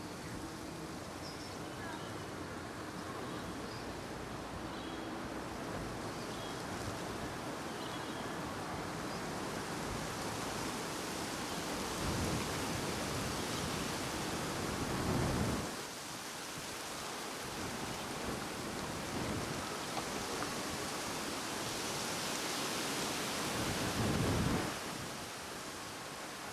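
Wind buffeting the microphone outdoors: a steady rushing noise with two stronger gusts, one about halfway through and one near the end, each dropping off sharply.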